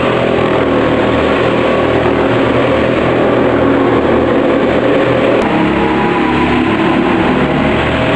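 Go-kart engines running, several engine notes at once shifting in pitch as the karts drive through a corner. A short click comes about five and a half seconds in, after which the engine notes change.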